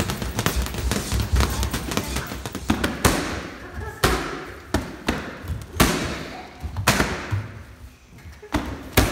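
Boxing gloves thudding rapidly on a hanging heavy bag, then five single sharp smacks of strikes landing on a handheld kick shield, about one every second or so, each with a short echo in the room.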